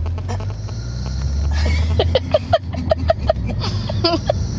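Steady low engine and road rumble inside a taxi. Through the middle it is joined by a quick run of about ten short, high-pitched sounds.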